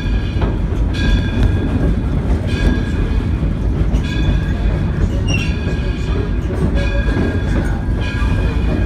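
Steam locomotive's bell ringing, one clang about every one and a half seconds, over the low rumble of the train rolling along the track, as it is rung coming into the station.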